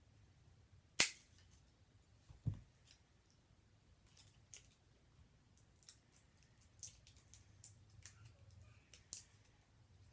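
Stiff plastic blister packaging being worked open by hand: a sharp snap about a second in, a dull thump shortly after, then scattered small clicks and crackles of the plastic being bent and pried.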